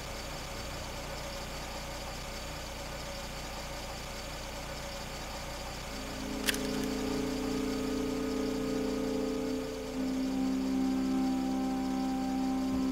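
Car engine idling steadily with a regular low pulse. About six seconds in, film score enters with long held chords, shifting to a new chord about four seconds later.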